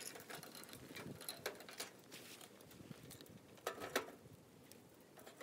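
Firewood crackling in a small wood-burning camp stove: scattered, irregular pops and snaps, with two louder pops just before four seconds in.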